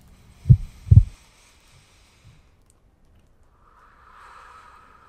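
Heartbeat sound effect: two low thumps about half a second apart near the start, then near silence, with a faint hiss swelling and fading near the end.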